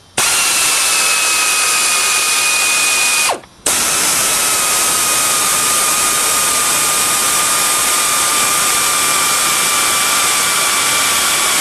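Pneumatic air tool running in two long bursts: a steady whine over rushing air, its pitch sagging slightly as it runs. The first burst lasts about three seconds; the second follows after a brief stop and runs much longer.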